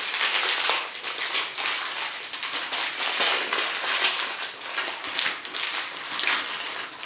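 Clear plastic bag around a Stollen loaf being pulled open and crumpled by hand, a dense, irregular crackle of crinkling plastic.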